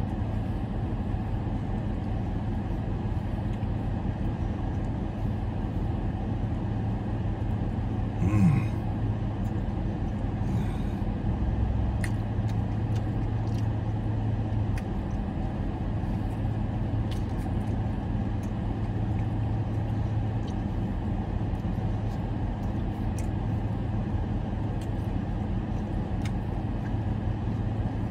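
Steady low hum of a car idling, heard from inside the cabin, with faint chewing and a brief sound about eight seconds in.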